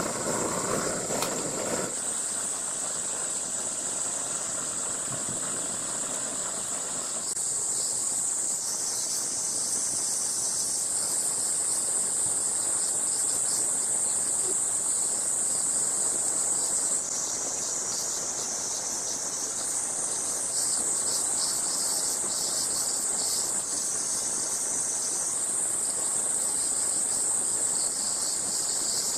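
Dense, steady high-pitched insect chorus, its pitch band stepping up and down every few seconds as different callers join and drop out. In the first couple of seconds a camping stove's burner hisses underneath it, then fades out.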